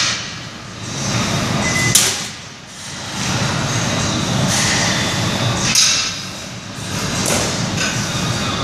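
Gym background noise with a single sharp metal clank of weight equipment about two seconds in.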